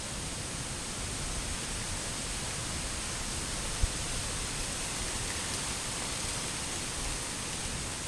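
Steady rushing hiss of a distant waterfall, with an uneven low rumble under it and a single brief thump about four seconds in.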